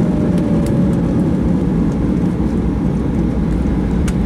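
Cabin noise inside a Boeing 737-900ER after landing: a steady low rumble of its CFM56-7B engines and the airframe rolling on the ground. A whine slowly falls in pitch over the first second and a half.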